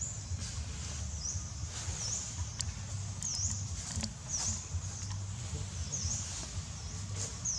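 A high-pitched chirping call repeated about seven times, roughly once a second, each chirp dipping down and back up in pitch, over a steady low hum with a few faint clicks.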